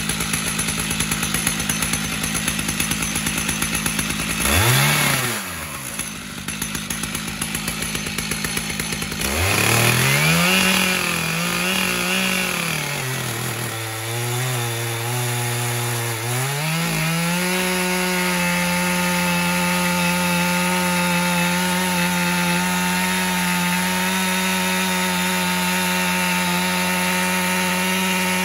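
Two-stroke chainsaw mounted in a chainsaw mill, starting a lengthwise rip cut through a sycamore log. It runs steadily, revs up briefly about four seconds in, revs up and down from about nine seconds, drops in pitch around fourteen seconds as it bites into the log, then from about seventeen seconds holds a steady high pitch as it cuts along the log.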